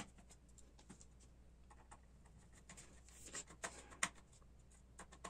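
Faint, scattered clicks and taps of hands and a tool handling a graphics card's cooler and its small screws during disassembly, with a small cluster of sharper clicks about three to four seconds in.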